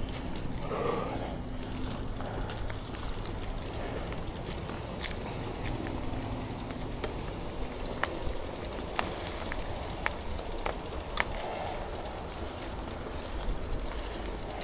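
Mountain bike descending a dirt trail: steady rolling tyre noise and low rumble, with scattered sharp clicks and rattles from the bike.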